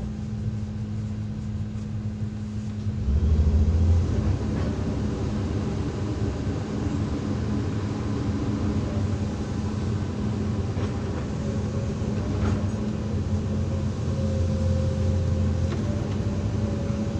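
Hydraulic excavator's diesel engine running steadily with a low hum, rising in loudness briefly about three seconds in and again later under load.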